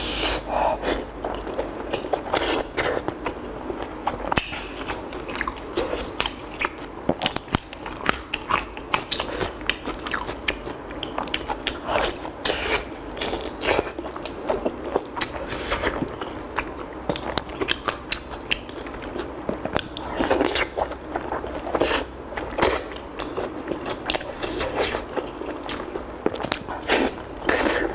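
Close-miked biting and chewing of sticky braised fatty pork: a steady, irregular run of wet mouth clicks and smacks.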